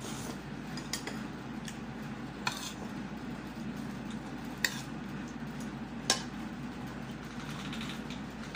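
Metal cutlery clinking on a plate, a few separate sharp clinks spread out, over a steady low hum.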